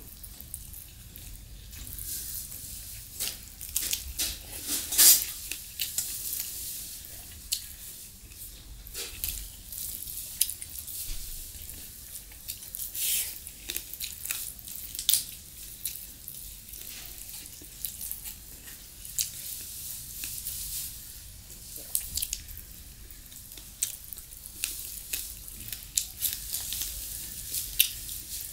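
Wet squishing and sticky clicks of rice and chicken curry being mixed and kneaded by hand in a steel bowl, with mouth chewing and lip smacks. Many short sharp smacks come irregularly, the loudest about five seconds in.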